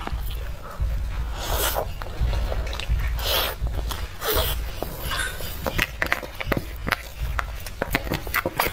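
Close-miked eating of soft cream cake: wet mouth and lip sounds as spoonfuls are taken. In the second half comes a run of quick clicks and scrapes from the spoon working around the plastic tub.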